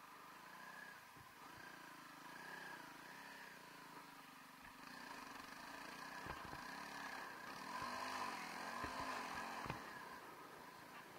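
Honda CRF300L Rally's single-cylinder engine revving up and down as the bike is ridden, getting louder in the second half. A few short low thumps come between about six and ten seconds in.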